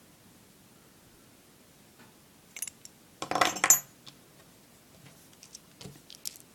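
Small metal parts of a dismantled luggage lock clinking and clattering as they are handled and set down: a few clicks, a louder clatter about three seconds in, then scattered light taps.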